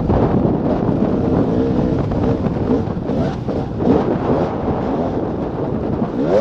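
2014 KTM 300 XC-W's single-cylinder two-stroke engine running under way on a dirt trail, its pitch rising and falling repeatedly as the throttle is worked, with wind buffeting the microphone.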